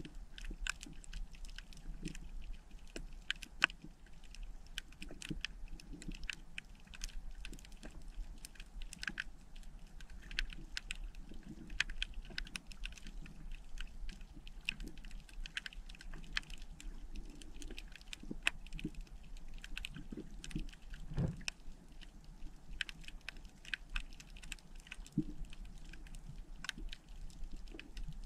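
Underwater reef crackle: a dense, irregular patter of sharp clicks, typical of snapping shrimp on a coral reef. One duller low thump stands out about three quarters of the way through.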